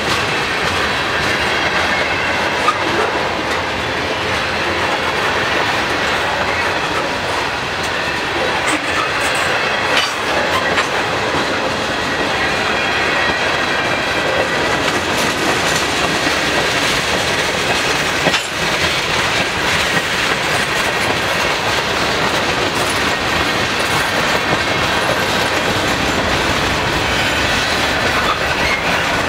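Freight train cars rolling past at speed: a steady noise of steel wheels running on the rails, with a few sharp knocks from the wheels and couplers.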